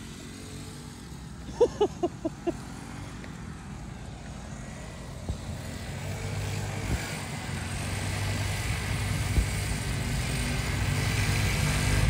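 A mini dirt bike's small engine running under way, growing steadily louder over the second half as the bike comes closer. About two seconds in there is a quick series of five short, high-pitched calls.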